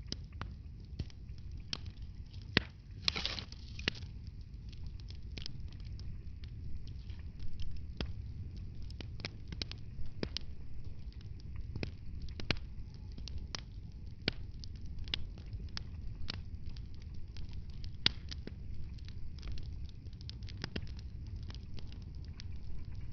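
Wood fire in a fireplace crackling: irregular sharp pops and snaps over a steady low rumble of the flames, with a brief denser flurry of crackles about three seconds in.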